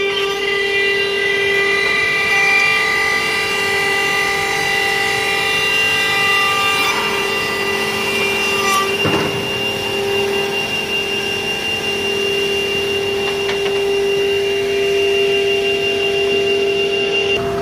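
Edge banding machine running: a steady, loud machine whine with one strong tone and many overtones from its high-speed trimming and scraping units, with a brief sharper cutting noise about nine seconds in.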